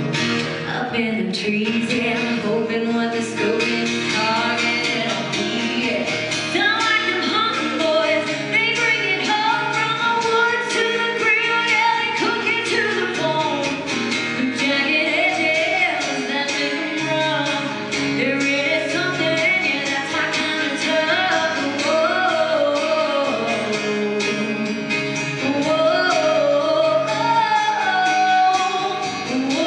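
A woman singing a country song live into a microphone, accompanied by a strummed acoustic guitar.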